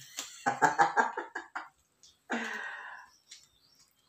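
A woman coughing and clearing her throat: a quick run of short coughs about half a second in, then one harsh throat clear a little after two seconds, followed by faint clicks near the end.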